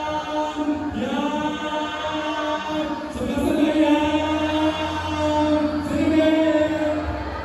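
Wedding guests and an emcee's voice over the PA holding the long drawn-out 'yaaaam' chant of a yum seng toast. The held notes break and start again a few times, over a steady low hum.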